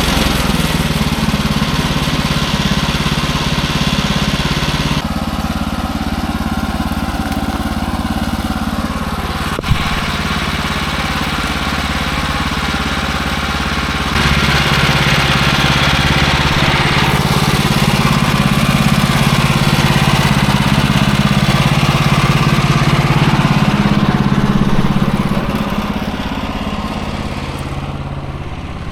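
Small gasoline engine of an assembly-type bandsaw sawmill running steadily, its note shifting a couple of times as the load or throttle changes, with one sharp click about ten seconds in. The sound eases off near the end.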